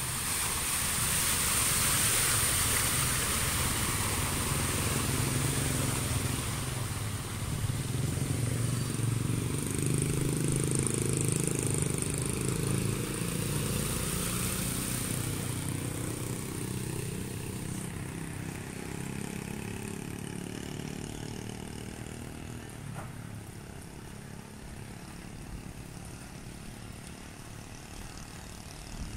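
A car and then motor scooters driving through shallow floodwater, tyres splashing and swishing through the water over the engines' running; loudest in the first half, then fading off.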